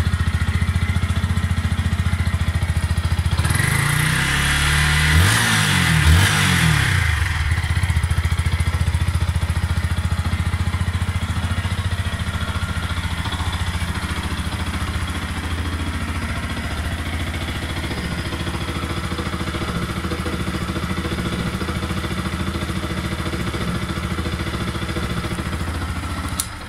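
Yamaha MT-125's single-cylinder four-stroke engine idling steadily. It is revved a few times, rising and falling, about four seconds in, then settles back to idle and cuts off at the very end.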